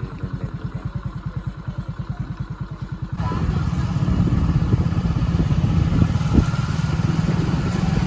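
KTM Duke 390 single-cylinder motorcycle engine idling with an even, rapid chugging beat; about three seconds in the sound abruptly turns louder and rougher, with a hiss of noise over the engine.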